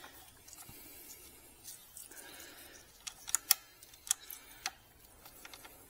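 Front-wheel ABS sensor and its cable being fitted by gloved hand, with a faint rustle of handling. A few sharp little clicks and taps come in the second half.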